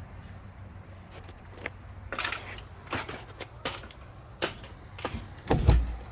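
Irregular mechanical clicks and clacks, about a dozen, with one heavier thump near the end.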